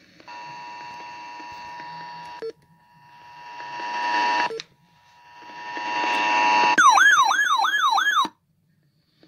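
RadioShack NOAA weather radio sounding its alert: a steady tone near 1 kHz that breaks off twice and comes back louder each time as the volume is turned up. Then a loud warbling siren-like alarm for about a second and a half, which stops abruptly.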